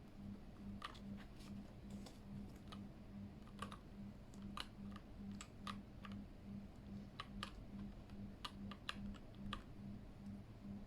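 Keys being pressed on a Keychron K8 mechanical keyboard: irregular, spaced-out clacks, a few a second, over a low, steadily pulsing hum.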